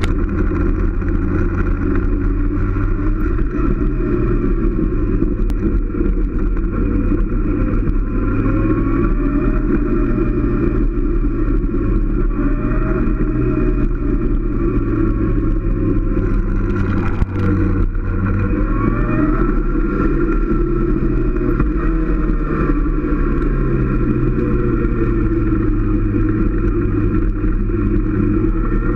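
Motorcycle engine running on the move, its pitch rising and falling with the throttle and stepping with gear changes. A single short knock about seventeen seconds in.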